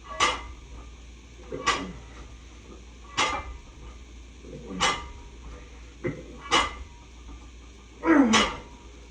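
A dog barking repeatedly, one short bark about every second and a half, the last bark longer and dropping in pitch.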